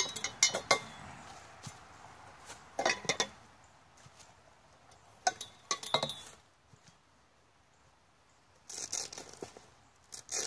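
Metal cot-frame legs and tubes clinking and knocking together in several short clusters as they are handled, with dry leaves crunching and rustling underfoot.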